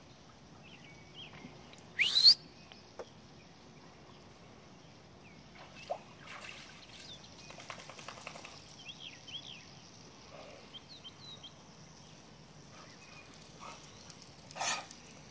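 Birds chirping over quiet outdoor ambience, with one loud rising chirp about two seconds in, and a dog's short snort near the end.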